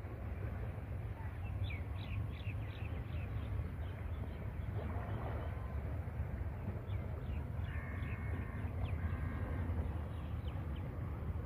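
Crows cawing and small birds chirping in short bouts over a steady low rumble of open-air noise, with a few drawn-out caws about two-thirds of the way through.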